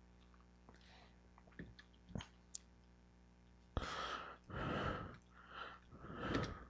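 A person's quiet breathing, about four soft breaths in the second half, after two or three faint clicks.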